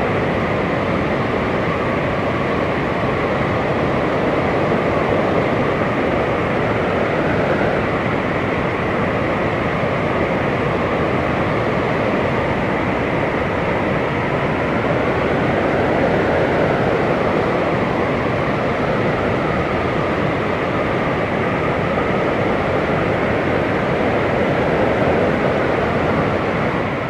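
Blizzard wind blowing steadily, a dense rushing noise with faint whistling tones that waver up and down in pitch, tailing off right at the end.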